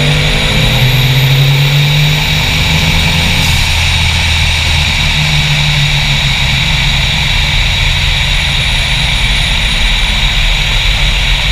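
Onboard sound of a turbocharged LS V8 race truck making a drag-strip pass under power, with a turbo whine that rises in the first second and holds. About three and a half seconds in, the whine and the engine's higher notes drop away, leaving a steady loud rush of wind and a low engine note as the truck runs on down the track.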